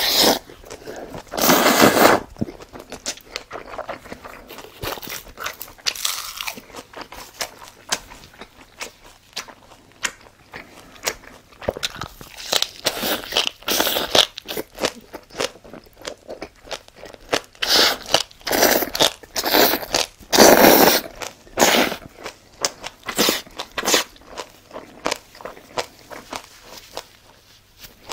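Close-miked eating of black-bean-sauce noodles: noodles slurped into the mouth and chewed, making many short clicks. Louder slurps come at the start, about two seconds in, and again about two-thirds of the way through.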